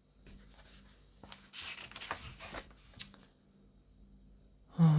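Pages of a paper booklet being turned by hand: a paper rustle about a second and a half in, then a sharp flick of a page at about three seconds.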